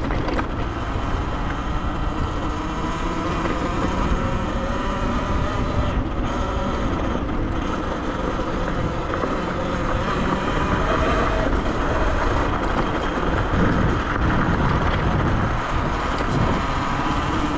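Riding a Talaria Sting electric dirt bike: wind rushing over the microphone, with the motor's whine faintly underneath, drifting up and down in pitch as the speed changes.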